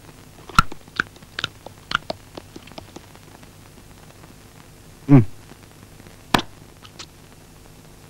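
Crisp crunching and chewing clicks through the first three seconds. About five seconds in comes a short tone sliding steeply down in pitch, the loudest sound, and a single sharp click follows a second later.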